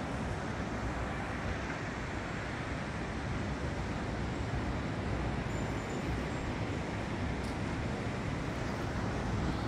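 Steady rushing outdoor ambience of distant surf and wind, with no distinct events.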